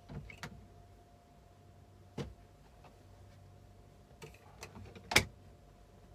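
A few sharp knocks and bumps as a bed in a motorhome is made up by hand, the loudest about five seconds in, over a faint steady hum.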